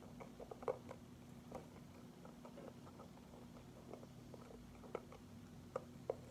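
Faint mouth and hand sounds of a toddler eating small round candies: scattered soft clicks and smacks as she picks the candies off the tabletop and chews, with a few sharper clicks about a second in and near the end. A faint steady hum runs underneath.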